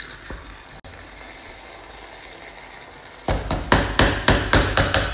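Wooden spoon knocking and scraping against the sides of a non-stick pan while stirring a thick yam and fish stew. The knocks start about three seconds in as a quick run of sharp knocks, about four a second.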